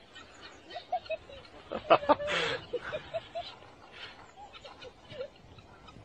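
A flock of small birds calling in short chirps as they scatter, with a brief louder cry about two seconds in.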